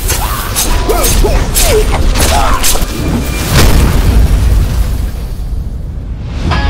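Action-film sound effects: a quick run of sharp hits or shots over a deep rumble, then a loud explosion about three and a half seconds in that dies away. Music starts right at the end.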